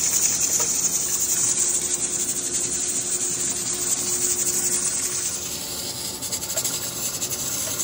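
Steady hiss of steam escaping from a pressure cooker still at pressure.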